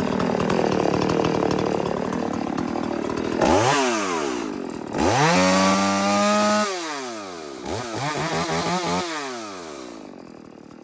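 Oleo-Mac 941 two-stroke chainsaw running at high revs, then let down and revved up again twice with the throttle before settling and fading out near the end. The saw is freshly serviced and running as it should.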